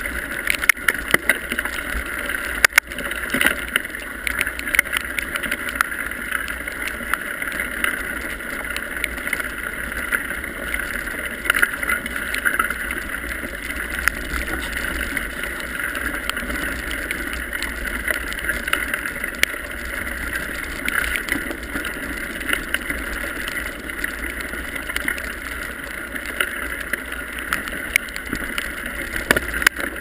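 Titus El Guapo mountain bike descending a gravel road fast, heard from a GoPro mounted on its handlebar: a steady rumble and hiss of the tyres on loose gravel, with constant small clattering knocks from the bike and mount over the bumps.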